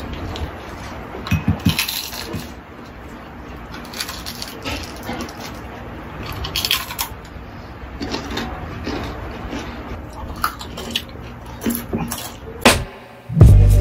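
Close-miked eating: crisp snaps and crackles as deep-fried chicken skin and lettuce leaves are bitten and chewed, coming irregularly, with one louder snap near the end.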